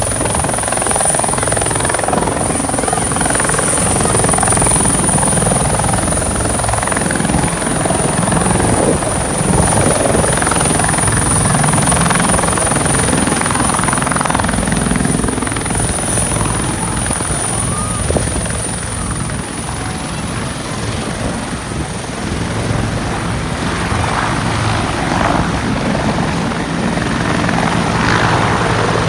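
Military helicopter's turbine engine and main rotor running, a steady high whine over the low chop of the rotor blades.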